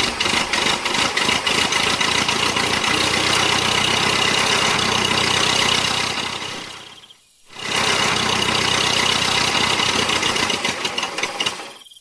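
Tractor engine running steadily with a rapid ticking beat. It cuts out briefly about seven seconds in, then comes back.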